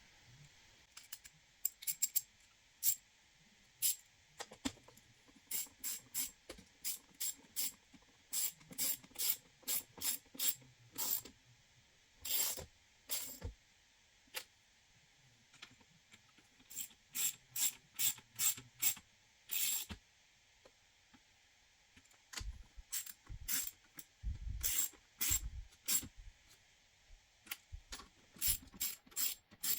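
Hands working on PC hardware: an irregular run of short sharp clicks and brief rasps, coming in clusters with short pauses between them.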